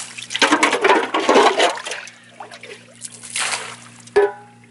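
Water being scooped with a camping pot from a rock pothole and thrown out: sloshing and splashing in two bursts, with a short knock near the end.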